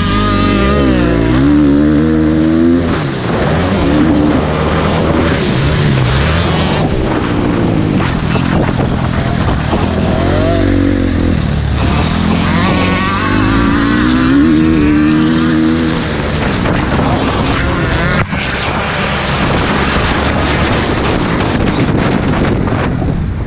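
Motocross dirt bike engine heard close up from the riding camera, revving up and dropping back again and again as the rider accelerates, shifts and backs off through the track's turns.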